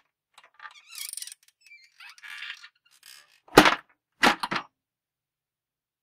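Key box being handled open and shut: light rattling and scraping for about two seconds, then two loud clunks of its door about two-thirds of a second apart.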